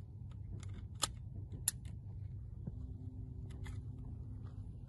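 Several small sharp metallic clicks from a handgun being handled and made safe, with two louder clicks about one and nearly two seconds in, over a steady low rumble; a faint steady hum comes in past the middle.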